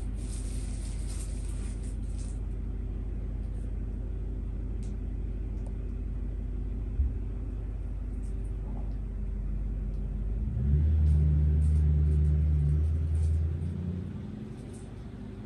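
A steady low mechanical rumble and hum that swells louder for about three seconds past the middle, then eases off. A single sharp knock about seven seconds in.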